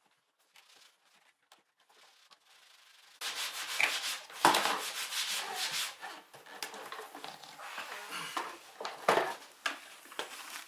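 Irregular rubbing and scraping with a few sharp knocks, starting suddenly about three seconds in after near quiet.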